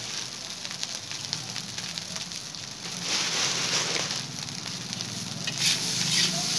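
Chicken fried rice frying in a wok over a gas burner: a steady sizzle. Near the end, a spatula starts scraping and knocking against the wok as the rice is stirred.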